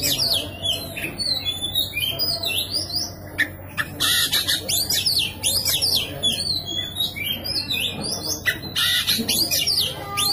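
Oriental magpie-robin (kacer) singing a fast, persistent fighting song: rapid sweeping whistles mixed with harsh scratchy notes, with short lulls about two seconds and seven seconds in. It is the kind of challenge song that is played to provoke silent magpie-robins into singing.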